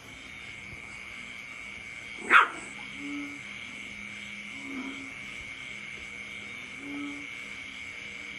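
A small puppy gives one short, sharp bark about two seconds in. Behind it runs a steady high trill, with a soft low call repeating about every two seconds.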